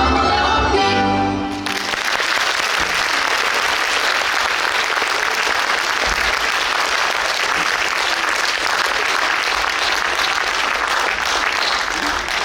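Folk-dance music ends about two seconds in, followed by steady audience applause.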